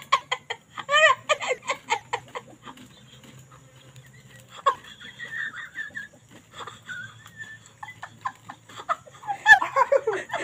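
A man and a woman laughing hard in quick repeated bursts, which die down after a couple of seconds and break out again near the end. A high-pitched call sounds about five seconds in.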